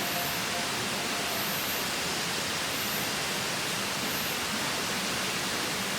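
Steady rushing of a mountain valley stream. A faint, high-pitched chirp repeats about every second and a half.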